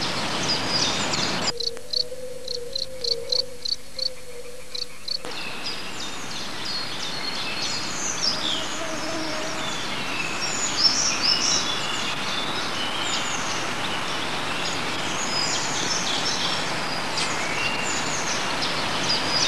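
Woodland birdsong: many short high chirps and trills over a steady hiss. For a few seconds near the start a different patch sounds instead, with evenly repeated chirps about three a second over a low wavering tone.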